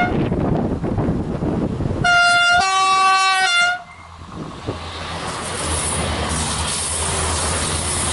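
SNCF X 72500 (X TER) diesel railcar sounding its two-tone horn as it approaches: a short toot at the start, then about two seconds in a longer call that steps high, low, high over nearly two seconds. The railcar's engine and wheels then rumble past close by.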